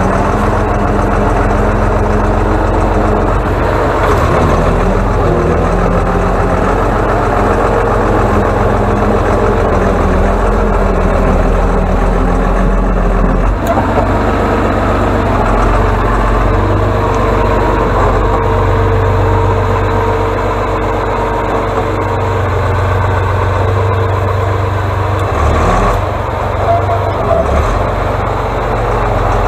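Diesel engine of an Atlas 1602 wheeled excavator running steadily and loud as the machine drives with its front blade pushing snow. The engine note shifts a few times.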